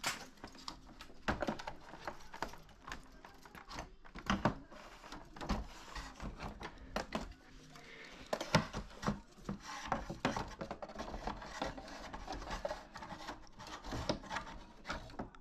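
Irregular clicks, knocks and rubbing of plastic parts being handled and fitted on a Toshiba wall-mounted air conditioner unit.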